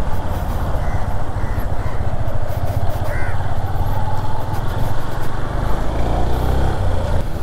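Motorcycle engine running steadily while riding, mixed with wind and road noise.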